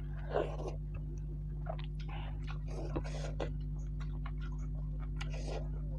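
Close-miked eating: four short crunchy bites and chewing, with small mouth clicks between.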